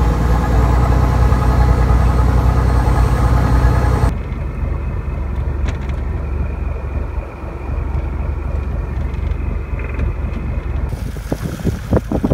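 Fishing boat's diesel engine running with a steady low drone, heard from on board. About four seconds in, the sound cuts to a quieter, duller engine hum, and near the end wind buffets the microphone in rapid low thumps.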